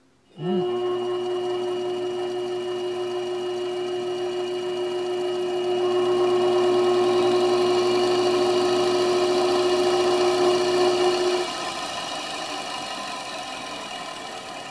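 Treadmill DC motor with a flywheel, powered from the treadmill's own controller, starting up about half a second in and running with a steady whine. It gets louder about six seconds in and drops to a quieter hum near the end.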